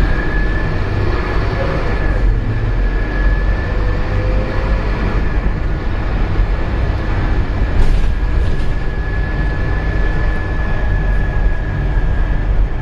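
Scania K230UB bus's five-cylinder diesel running, heard from inside the passenger saloon: a steady low rumble with a thin, steady high whine above it.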